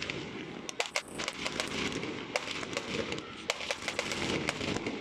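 Aerial fireworks bursting overhead: a rapid, irregular run of sharp cracks and pops from crackling stars, with no single big boom.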